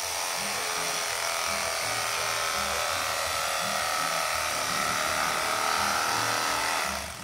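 Electric carving knife running steadily, its twin serrated blades sawing through a pastry-wrapped roast; the motor cuts off near the end.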